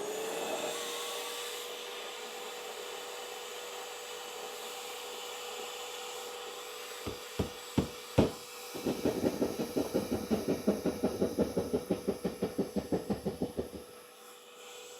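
Vacuum connected to a dust extractor attachment comes up to speed and runs with a steady whine. About seven seconds in, a Klein Tools foldable jab saw is knocked into the drywall three times. It then saws with quick, even strokes, about five a second, for some five seconds and stops while the vacuum runs on.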